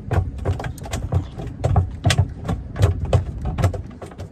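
Strong wind buffeting the microphone in rapid, uneven thumps, about three or four a second.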